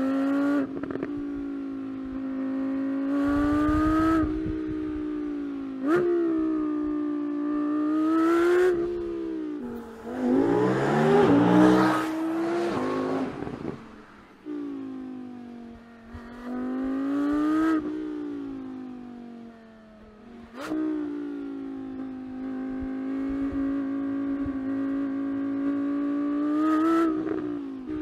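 Audi R8's 5.2-litre V10 engine accelerating hard, its pitch climbing and then dropping quickly at each up-shift, several times over. About ten seconds in comes a louder, rougher stretch with a falling pitch, like the car sweeping past.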